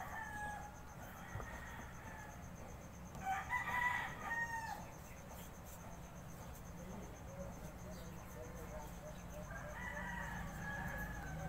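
A rooster crowing twice: once about three seconds in and again near the end, each crow lasting about a second and a half.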